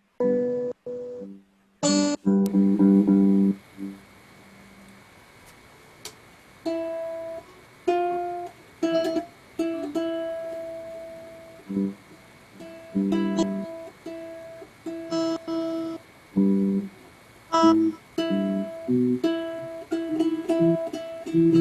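A plucked string instrument being tuned up over a video call: separate notes and a few chords, each dying away, with the same few pitches plucked again and again with short pauses between.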